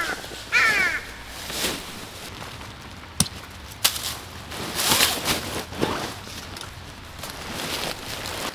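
A crow cawing, two harsh calls falling in pitch near the start, then two sharp knocks about three and four seconds in.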